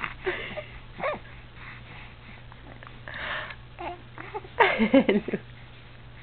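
A 3-month-old baby cooing and babbling in short vocal sounds, the loudest a cluster of drawn-out coos about three-quarters of the way through.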